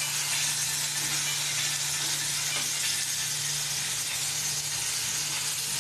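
Onion-tomato masala and fried capsicum pieces sizzling in a steel kadai while a spatula stirs them, with a few faint scrapes. A steady low hum runs underneath.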